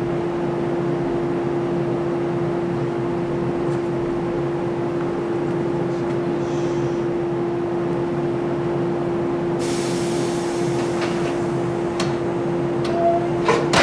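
A stationary JR 183 series electric train humming steadily from its onboard equipment, with one steady tone. About ten seconds in, a hiss of escaping air starts and runs for about four seconds, followed by a brief higher tone and a few clicks near the end.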